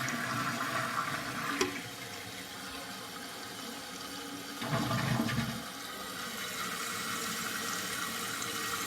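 Flush of a 2001 Eljer Savoy toilet: water rushing through the bowl, with a louder low surge about five seconds in, then a steady hiss as the tank refills.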